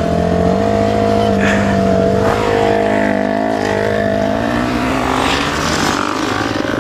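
Yamaha TTR 125's single-cylinder four-stroke engine running under way on a trail ride, revving up a little about half a second in, holding steady, then easing off near the end.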